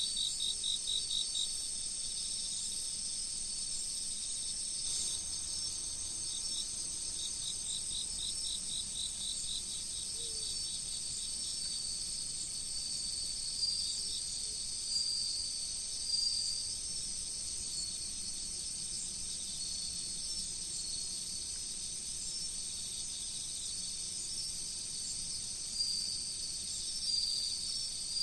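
A chorus of autumn insects, crickets among them: several high, steady trills overlap, with rapid pulsed chirp runs at the start and again around eight to ten seconds in, and short repeated chirps from the middle on.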